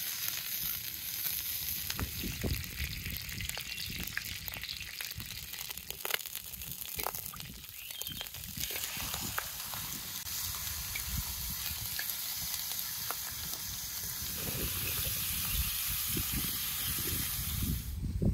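Butter and raw chicken pieces sizzling in a hot black steel wok over a wood fire: a steady frying hiss with scattered pops and clicks.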